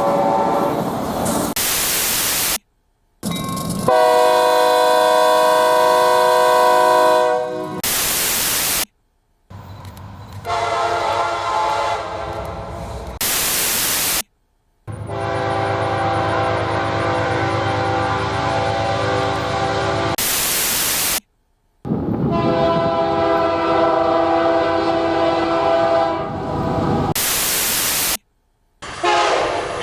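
Train horns, one after another, five or six in all, each a steady multi-tone chord held for several seconds. Between them come short bursts of hiss and brief silent gaps.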